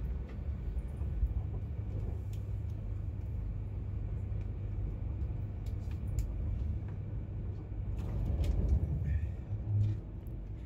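Steady low rumble of an Avanti West Coast intercity train running along the track, heard from inside the carriage, with scattered faint clicks. The rumble swells louder near the end.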